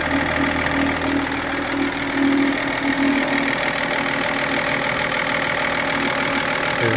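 BMW 530d's M57 three-litre diesel engine idling steadily, shortly after starting.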